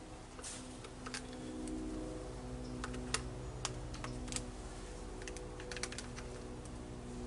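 Light, irregular clicks and taps from small parts and tools being handled, over a steady low hum.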